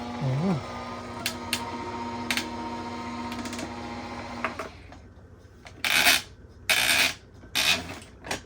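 Small electric coffee grinder motor running empty with a steady hum for about four and a half seconds, then stopping; three short rasping scrapes of plastic parts follow near the end.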